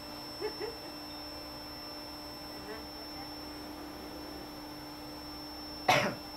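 A steady electrical hum, with two faint short pitched sounds about half a second in and a brief, loud cry near the end.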